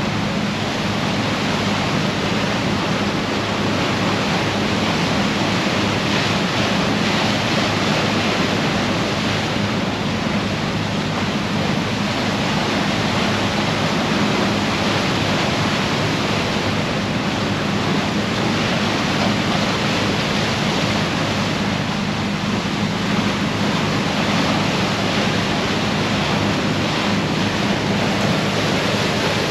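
Steady rush of water as the bow of the Garinko icebreaker cuts through the sea, over the low steady hum of the ship's engines.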